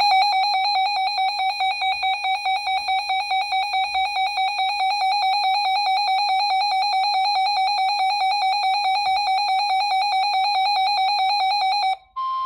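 A weather radio receiver's built-in electronic alert alarm sounding: a shrill beeping tone pulsing fast and evenly, set off by an incoming flash flood warning. Near the end it cuts off and a steadier broadcast alert tone takes over.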